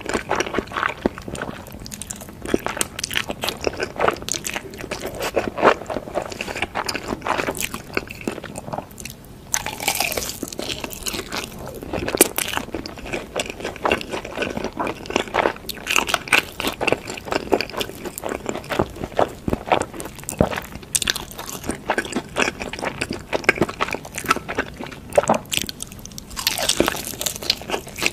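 Close-miked eating: crisp crunching bites into sauced Korean fried chicken and chewing, with many sharp crackles of the coating throughout.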